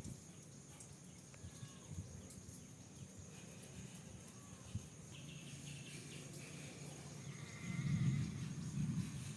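A cat giving low, drawn-out meows near the end, two calls close together, over faint background noise.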